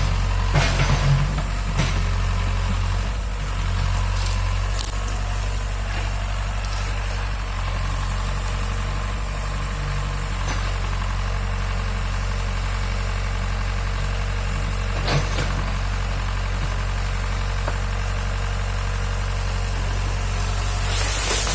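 Excavator's diesel engine running steadily at an even, low pitch, with a few scattered clicks and knocks and a brief hiss near the end.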